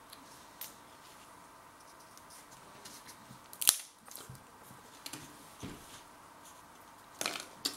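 A thin, dish-shaped multigrain pop crisp snapped by hand, with one sharp crack about halfway through and a few small crackles after it. A short cluster of crackles comes near the end.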